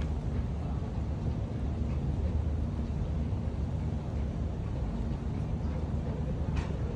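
Steady low rumble of boat engines running on the water.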